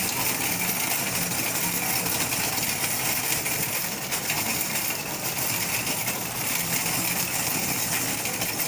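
A plastic-and-metal shopping cart rattling and jingling steadily as it is pushed along a store floor, heard from inside the cart.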